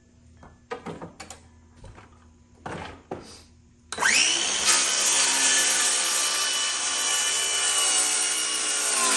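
A few light knocks as the saw and board are handled, then about four seconds in a DEWALT 20V cordless 6-1/2-inch circular saw starts. It spins up with a quick rising whine and cuts steadily through a wooden board. It is running on a battery down to one bar but still cutting at full strength.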